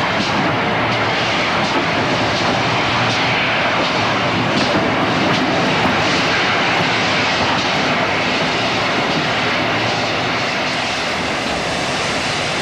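Steam locomotive running: a loud, steady roar of noise with faint, irregular beats.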